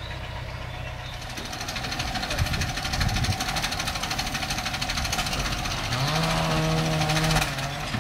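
An engine running with a fast, even knocking clatter that grows louder about a second in. About six seconds in, a low droning tone joins and wavers up and down in pitch.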